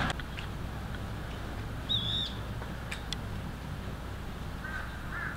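A single short, high bird call about two seconds in, over a steady low hum.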